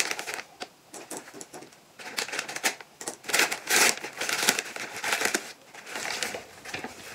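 Brown kraft paper bag being handled and unfolded, crinkling and rustling. Sparse crinkles at first, then denser, louder rustling from about two seconds in.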